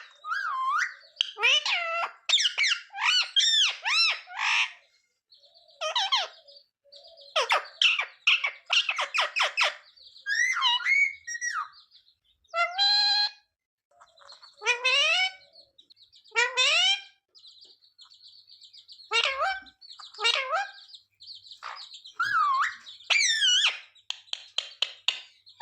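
Rose-ringed (ringneck) parakeet calling in repeated bursts of loud, high-pitched calls that glide up and down in pitch, some broken into fast chattering series.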